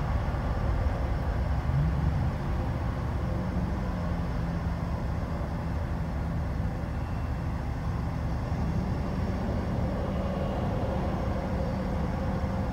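Steady low rumble of vehicle traffic and engines heard through an open window, with an engine tone slowly dropping in pitch in the second half.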